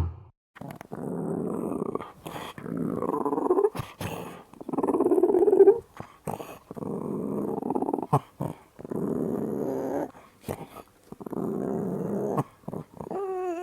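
Designed alien-creature sound effect: a series of rasping, dog-like growls, each a second or two long, with short clicks between them. Right at the end a different, pitched wavering call begins.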